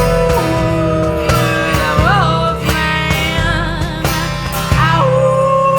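Live band playing an instrumental stretch: guitars over bass and drums with a steady beat. A long held melody line bends up in pitch about two seconds in, and a new held note starts near the end.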